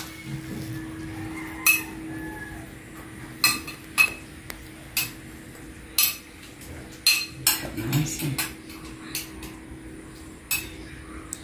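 A metal spoon clinking against a cooking pot and then against a small glass bowl, about a dozen sharp, irregularly spaced clinks, over a steady low hum.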